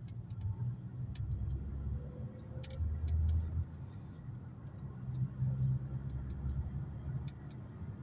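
Low, steady rumble of a car's engine and tyres on the road, heard from inside the cabin while driving, with a few faint scattered ticks.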